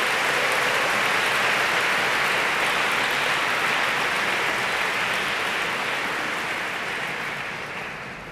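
A large audience applauding, a dense, steady clapping that fades away near the end.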